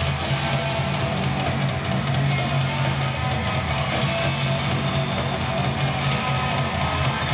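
Rock music with guitar playing over an ice-hockey arena's PA, steady throughout.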